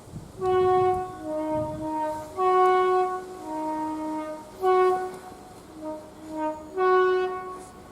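A two-tone train horn sounded over and over, switching between a high note and a lower note about four times each. A low rumble sits under the first two seconds.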